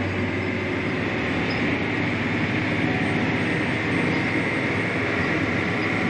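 Tractor engine and drivetrain running steadily under load, heard from inside the cab while pulling a tillage implement: an even drone with a low hum and a hiss.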